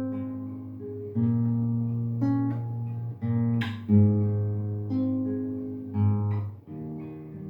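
Acoustic guitar playing chords that are picked and strummed, each ringing out and fading before the next, a new chord about every second.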